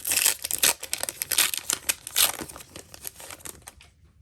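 Foil booster-pack wrapper crinkling as it is torn open, a dense run of crackles that dies away near the end.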